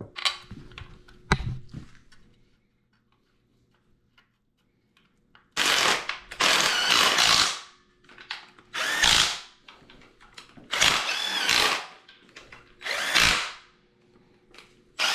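DeWalt cordless drivers running in about four bursts, the first about two seconds long and the others shorter, driving in the oil pan bolts. A few sharp clicks of tool handling come first.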